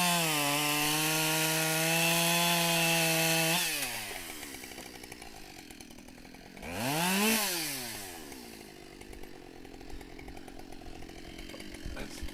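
Husqvarna 572XP two-stroke chainsaw revving up and cutting, its pitch settling a little lower under load for about three and a half seconds before it drops back to idle. About seven seconds in it gives one more quick rev up and down, then idles.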